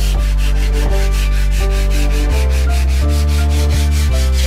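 Background music: held notes that change every half second or so over a steady bass line, with a fast, even, hissing beat running through it.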